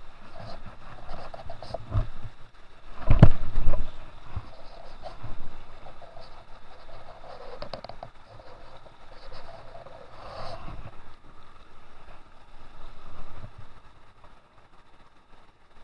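Rushing stream water over rocks, overlaid by handling bumps and rubbing on the microphone, with one loud knock about three seconds in.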